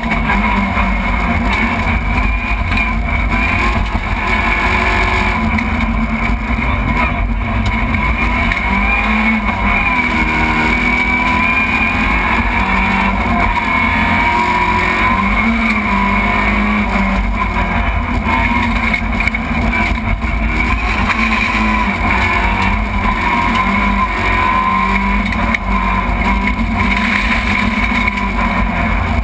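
Rally car engine heard from inside the stripped, roll-caged cabin, running hard at high revs on a special stage, its pitch rising and falling repeatedly as the car accelerates and slows.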